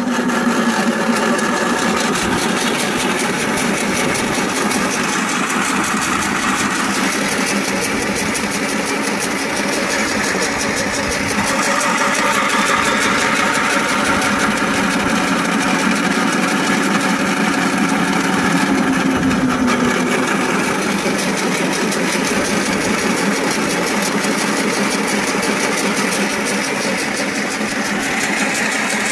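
Home-built flat-die pellet mill running steadily under its drive motor while feed is being pressed into pellets: a loud, even machine drone with a steady low hum.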